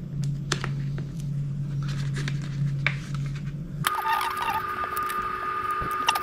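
A steady electric hum that switches abruptly to a higher, different-pitched hum about four seconds in, with scattered light clicks and taps from handling.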